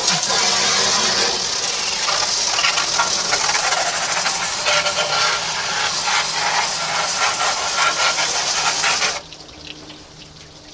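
Water spraying hard into the metal smoker chamber, a steady hiss with splattering, rinsing out the oven cleaner. It cuts off suddenly about nine seconds in.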